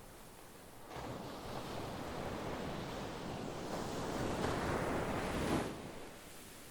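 Sea waves on a shore: one wave surges in about a second in, builds to its loudest just before the end, then dies back to a soft wash.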